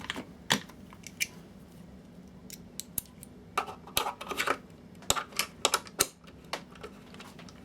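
Irregular clicks and taps of a screwdriver knocking and scraping against the plastic housing of a cheap projector as it is worked down toward a recessed screw, with small clusters of clicks around the middle and later on.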